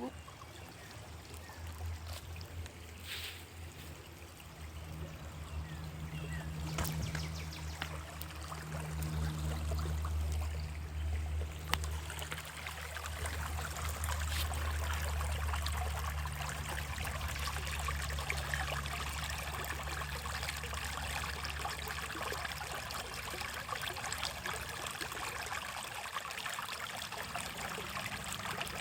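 Running stream, trickling and splashing, growing clearer about twelve seconds in. A low rumble sits under the first twenty seconds.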